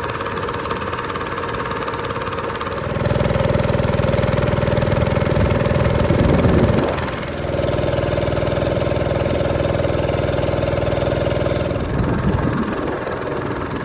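Engine running steadily, getting louder about three seconds in, with a brief sweep down and back up in its pitch around the middle and another near the end.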